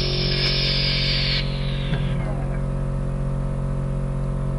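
Background music fading out about a second and a half in, leaving a portable 12-volt air compressor running with a steady drone as it inflates a tire.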